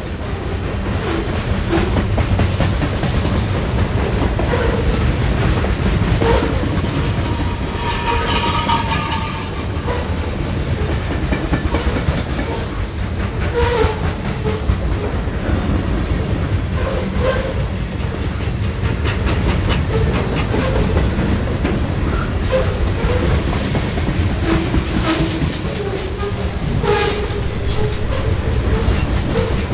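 Freight train of centerbeam flatcars loaded with lumber rolling past close by: a steady rumble with the clickety-clack of wheels over the rail joints. Short squeals rise above it now and then, the longest about eight seconds in.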